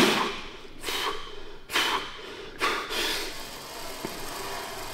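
Three sharp, forceful breaths, about a second apart, from a lifter straining through a heavy set of Smith-machine bench press.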